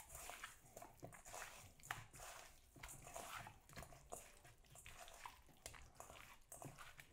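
Faint wet, sticky squishing and clicking of bare hands mixing raw chicken breast strips with olive oil and dry seasoning to coat them.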